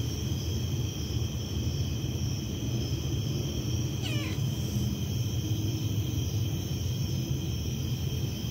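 A cat gives one short meow about four seconds in, falling in pitch, over a steady high-pitched chorus of night insects and a constant low rumble.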